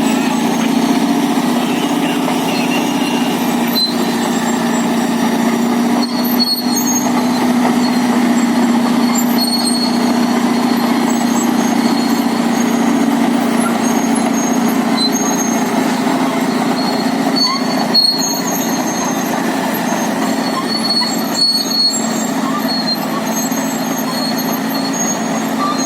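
Caterpillar D8L track dozer's diesel engine running steadily with a deep, even drone, with a few brief knocks about six seconds in and twice more later on.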